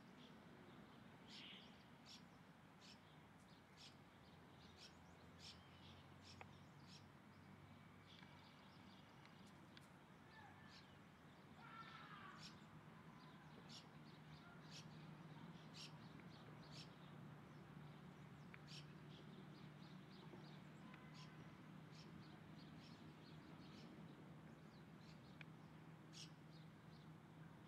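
Faint outdoor ambience: short, high bird chirps come at irregular intervals, with a few brief gliding calls about halfway through, over a low steady hum.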